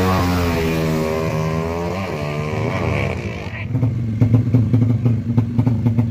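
Drag-racing motorcycles at full throttle, the engine pitch dipping and climbing again about two and three seconds in. The loud engine cuts away about three and a half seconds in, leaving a motorcycle engine running at low revs with rapid uneven popping.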